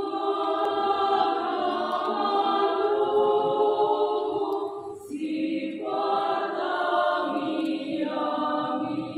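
Church choir singing in harmony, holding long sustained chords, with a short breath break about five seconds in before the next phrase.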